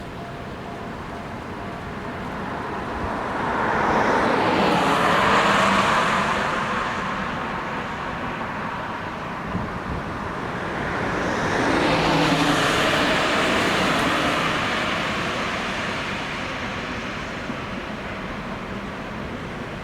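Two road vehicles passing one after the other, each a rush of tyre and engine noise that swells and fades over a few seconds.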